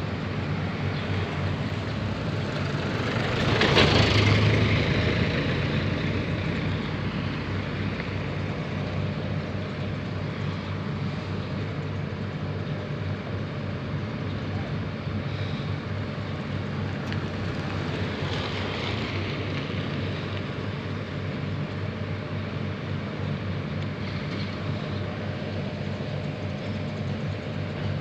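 Jonyang JY623E mini excavator's diesel engine running steadily while the machine works. About four seconds in it rises louder, with a hiss, for a couple of seconds, then settles back.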